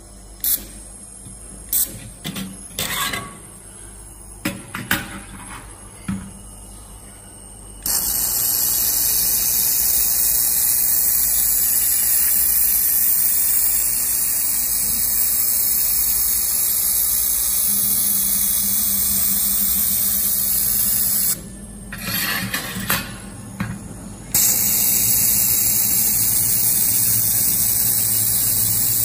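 Hand-held fiber laser welder: several short hissing bursts of tack welds over the first few seconds, then a loud, steady hiss of continuous seam welding from about a quarter of the way in. Near the end the hiss stops for a few seconds, with a few short clicks and bursts, then resumes.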